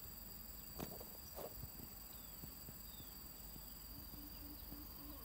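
Faint outdoor ambience: a steady high-pitched drone, two brief faint sounds about a second in, and from about four seconds in a faint low call repeating in short pulses.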